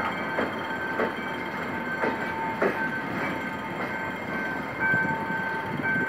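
Passenger coaches rolling past on the rails, their wheels clacking irregularly over the rail joints above a steady rumble, with a steady high-pitched ringing tone over it. The last coach goes by near the end.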